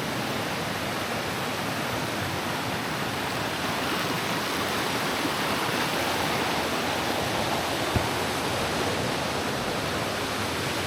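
Small waterfalls and a stream of running water, a steady rush, with one short click about eight seconds in.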